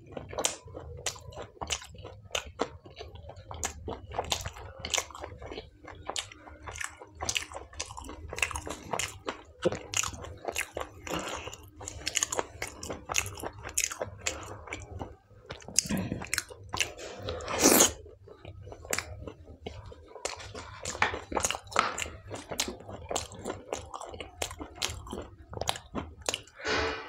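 A person eating palak paneer with tandoori naan and salad, close to the microphone: continual chewing and biting with many small crisp clicks, and one louder bite about two-thirds of the way through.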